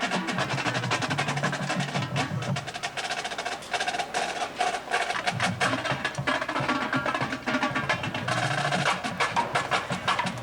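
Marching drumline playing a fast percussion cadence: dense, rapid snare-drum strokes with sharp stick clicks, and lower drum tones coming and going underneath.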